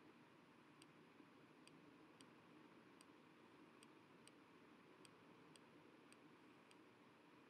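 Near silence with a faint hiss, broken by faint, sharp, high-pitched ticks about every half second to second, at slightly uneven spacing.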